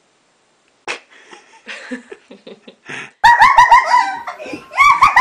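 Silence, a click at a cut about a second in, and faint shuffling. About three seconds in, a person bursts into loud, rapid, high-pitched laughter.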